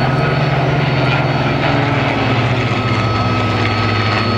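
Piston aircraft engines droning as a Bristol Blenheim Mk IV, with its two Bristol Mercury radial engines, and a single-engine fighter fly past together in formation. The drone drops in pitch about two seconds in as they pass by.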